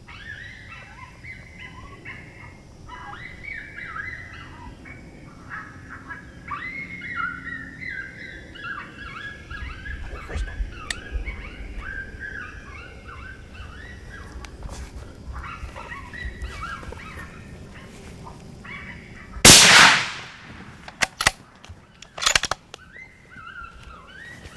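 Coyote pup-distress yelps played from a FoxPro electronic caller, a rapid string of high whining cries that rise and fall. About three-quarters of the way through a single loud .243 rifle shot cracks out, followed by a few sharp clicks.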